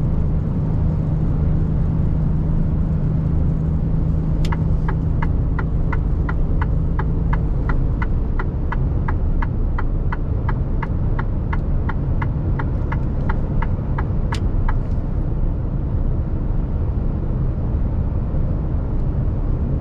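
Steady engine and road rumble inside the cab of a Mercedes-Benz Actros truck at motorway speed. From about four seconds in to about fourteen seconds, the turn indicator ticks evenly, about two and a half ticks a second, signalling for a motorway exit.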